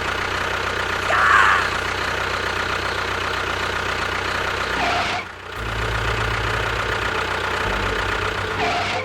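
Engine running at a steady idle, with a brief high chirp about a second in and a short drop-out about five seconds in, after which the low hum comes back a little changed.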